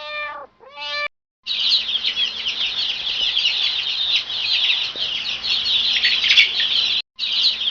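A cat meows twice, then after a short pause a crowd of chicks peeps at once: many overlapping short, high chirps that break off briefly near the end and start again.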